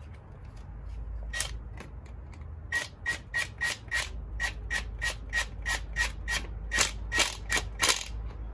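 Cordless power tool turning a socket on an extension against the scooter's front fork top cap, giving a string of sharp metallic clicks, about three a second, starting about a second and a half in.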